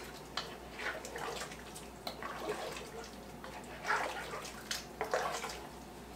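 Wooden spoon stirring chunks of beef in broth in a Dutch oven: irregular swishing and sloshing of liquid, with a few light knocks of the spoon against the pot.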